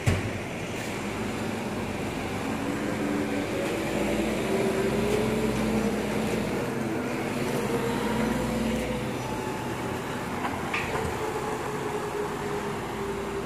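Diesel engine of a Volvo FE 300 recycling truck pulling away, its pitch rising over the first few seconds, holding, then easing off. A sharp knock right at the start.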